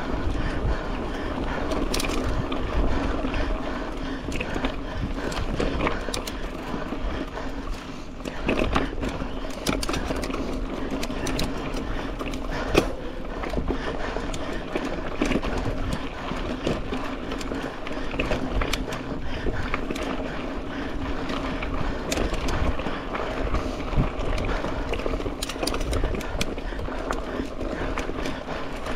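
Mountain bike rolling fast along a dirt race trail: steady tyre noise with frequent clicks and rattles as the bike runs over bumps.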